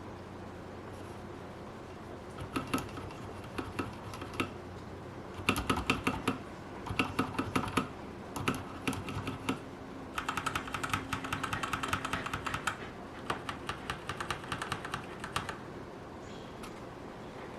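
Typing test on a Keychron K2 mechanical keyboard with Gateron Brown tactile switches: a few single keypresses, then bursts of rapid typing, the fastest run a little past the middle, falling quiet near the end.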